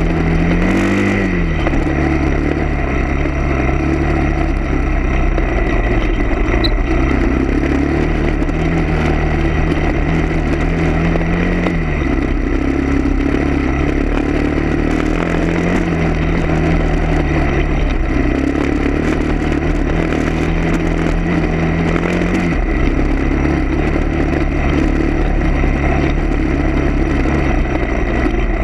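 Motor vehicle engine running, its pitch rising and falling several times as the revs change, with a sharp drop about 22 seconds in.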